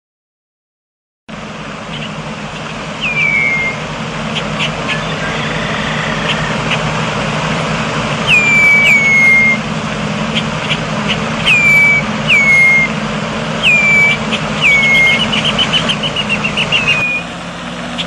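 Red-winged blackbird calls: short whistles that slide downward, mostly in pairs, mixed with sharp chip notes and a fast chattering trill near the end. Under them runs a steady low rumble.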